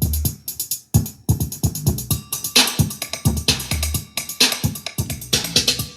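Electronic music with a drum-machine beat and deep bass notes, played through a JBL Xtreme portable Bluetooth speaker as a bass test.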